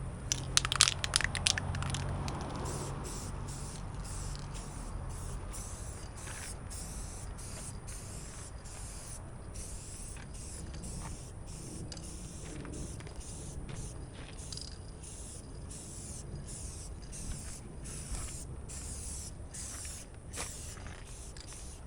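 Aerosol spray-paint can being used: a quick burst of sharp rattling clicks about a second in as the can is shaken, then a long hiss of paint spraying, broken by short pauses. Low wind rumble on the microphone underneath.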